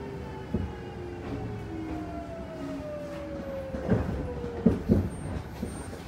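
Kintetsu 1233 series train heard from inside the car: the VVVF inverter and traction motor whine slides slowly down in pitch as the train slows. Sharp knocks from the wheels crossing rail joints come about half a second in, then three more near four to five seconds in.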